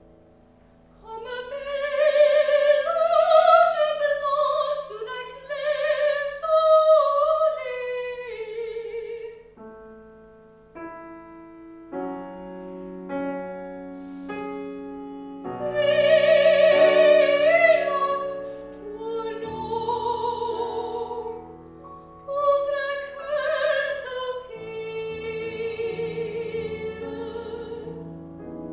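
A classical soprano singing with wide operatic vibrato to piano accompaniment. The voice comes in about a second in, sings several phrases, drops out for a few seconds of piano alone about a third of the way through, then returns for more phrases.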